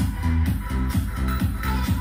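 Electronic dance music with a steady beat and heavy bass, played through a Sony HT-RT3 sound bar and its subwoofer.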